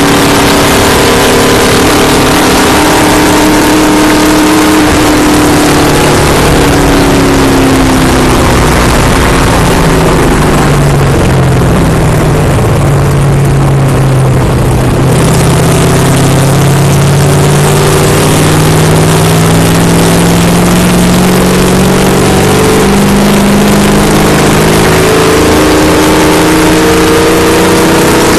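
Stock car's V8 engine running hard at speed, heard loud from inside the cockpit over wind and road noise. Its note sags and softens for a few seconds about a third of the way in, then climbs steadily again.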